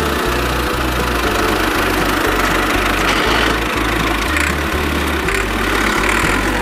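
An engine sound running steadily at idle with a knocking, rumbling character, over a low pulsing bass that changes pitch in steps.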